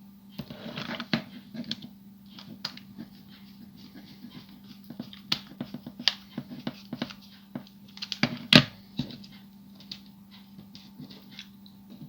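Small screwdriver driving a screw into the plastic body of a vintage Transformers toy: irregular light clicks and taps of metal and plastic, a few sharper ones, over a steady low hum.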